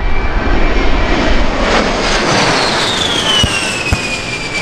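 A-10 Thunderbolt II's twin turbofan engines passing overhead: a loud jet roar with a high whine that falls steadily in pitch from about two seconds in as the jet goes by. Two brief low thumps come near the end.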